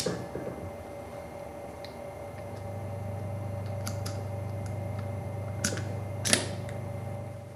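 Metal parts of a clamping mandrel clicking as they are fitted together by hand, with a few scattered light clicks and a sharper snap near the end, over a steady low hum.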